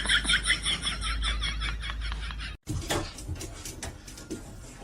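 An animal making a fast run of short, high chirps, about eight a second, that fade away. After a sudden cut, a few scattered clicks and knocks.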